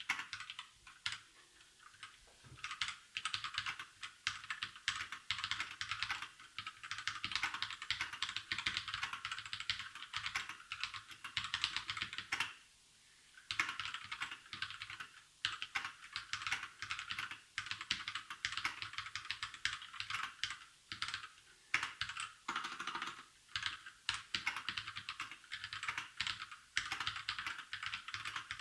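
Fast, continuous typing on an RK61 60% mechanical keyboard with Outemu Red linear switches: rapid key clicks and clacks, with a brief pause about halfway through.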